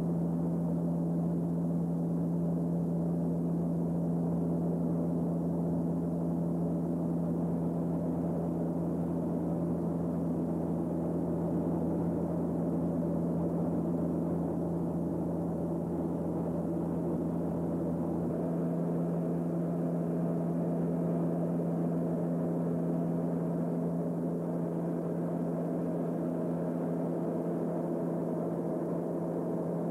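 Cabin drone of a Beech 200 King Air's twin turboprop engines and propellers in cruise: a steady, even hum with a strong low tone and fainter higher tones over it. A lower layer of the hum drops away about two-thirds of the way through.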